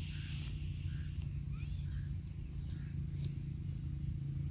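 Crickets chirping steadily, with a continuous low hum underneath and a few faint bird chirps about a second apart.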